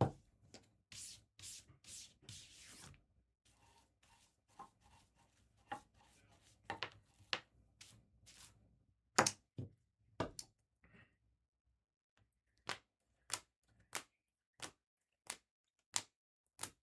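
Trading cards and their packaging being handled on a table: a few rustling swishes, then a run of sharp taps about every two-thirds of a second.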